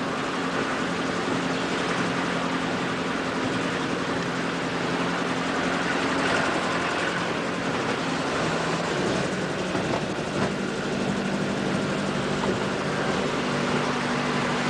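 A car's engine running steadily under an even road and wind noise, its low hum shifting pitch a little a few times.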